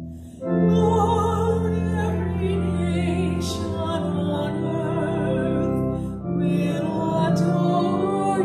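A woman cantor singing the responsorial psalm solo, holding long notes with a strong vibrato over sustained keyboard accompaniment. There is a brief pause for breath about six seconds in before the next phrase.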